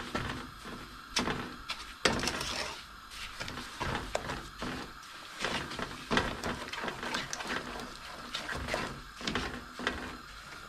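Wooden spoon stirring granulated sugar into crushed gooseberries in a metal preserving pan, with irregular scraping and knocks against the pan, one sharper knock about two seconds in.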